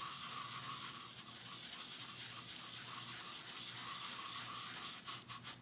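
The bristle brush built into a Method Stain Remover bottle scrubbing back and forth on carpet: a steady, scratchy brushing that turns into quick separate strokes near the end.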